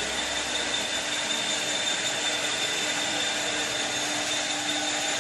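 CNC wood lathe running steadily: a constant machine hiss with a steady hum and a high whine.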